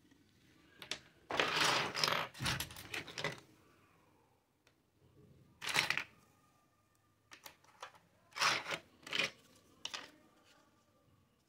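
Small plastic toy kitchen utensils clattering and clicking as they are picked up, shuffled and set down on a table. The sound comes in several short bursts: a longer rattle near the start, single knocks, and another cluster of clicks near the end.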